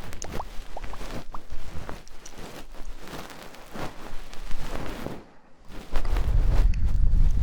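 Close-miked ASMR ear-cleaning sounds: scratchy crackling and small clicks on the microphone. About six seconds in, a low rumbling rush of air blown onto the mic takes over.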